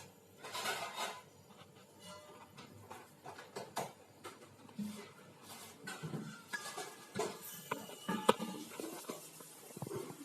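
Irregular light clinks, taps and knocks of hard objects being handled, with the sharpest knock about eight seconds in.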